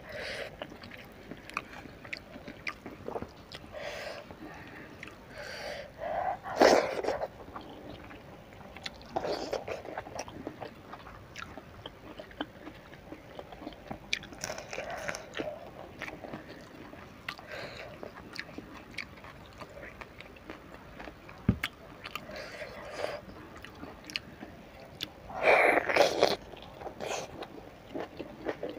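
Close-miked chewing and mouth sounds of someone eating rice and side dishes by hand, with a few louder moments several seconds apart, the loudest near the end.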